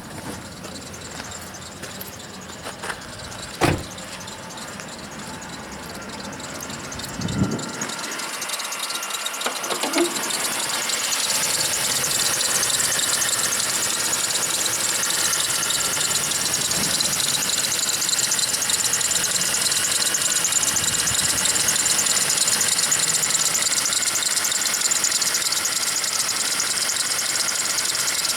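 Car engine running with a steady squealing, rubbing noise from the accessory drive belt, the sign of a bad belt tensioner or belt pulley. The noise grows louder over the first dozen seconds and then holds, with a few sharp knocks early on.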